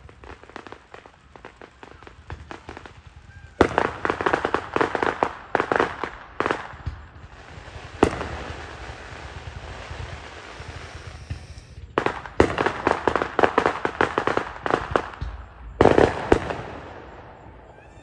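Fireworks going off in several bursts, each opening with a sharp bang followed by a rapid run of crackling pops. Between the bursts there is a steady hissing crackle.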